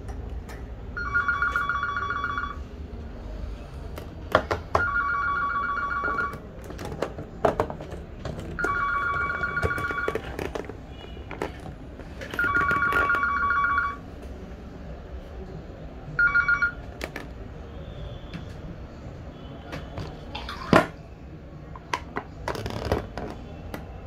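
A telephone ringing with a steady two-tone ring, about a second and a half on and two seconds off, four times, then a fifth brief ring that cuts off. Between and after the rings come scattered clicks and knocks of the plastic shower housing and covers being handled and fitted, the sharpest near the end.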